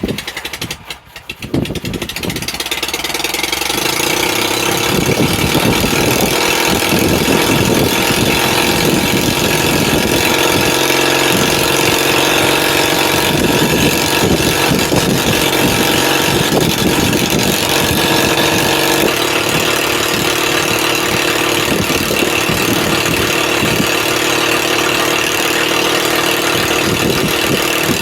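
Sawmill engine, cold-soaked with the block at about 28 degrees, cranking briefly and catching about a second and a half in, then coming up to speed and running steadily.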